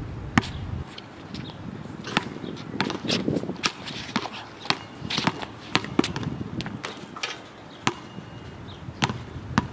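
Basketball being dribbled on an outdoor hard court: sharp bounces, unevenly spaced, about one a second.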